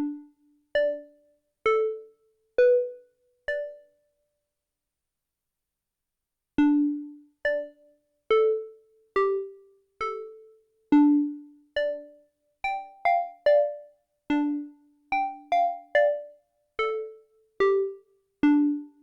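Arturia MicroFreak hybrid synthesizer playing a melody of short, plucked, bell-like notes that die away quickly: five notes, a pause of about three seconds, then a longer, faster phrase.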